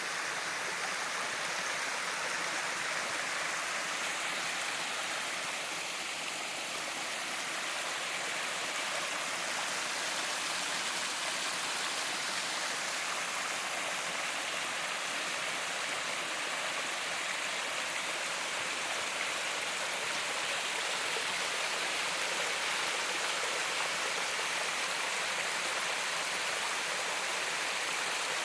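Running water rushing and splashing steadily, a constant hiss-like sound that stays even throughout.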